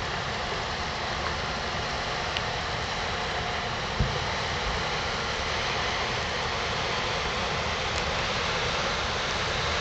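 Steady rushing noise of wind and water aboard a river cruise ship under way, with one brief low thump about four seconds in.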